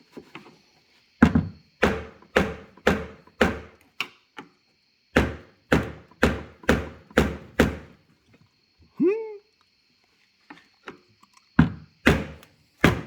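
Hammer blows on metal, about two a second, in three runs of four to six strikes with pauses between them. Each blow rings briefly. About nine seconds in there is a short squeal that rises, then falls.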